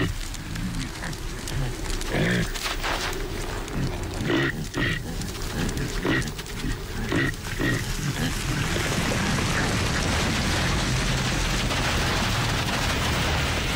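Caribou grunting in a series of short calls for the first half. After about eight seconds a steady rushing noise takes over.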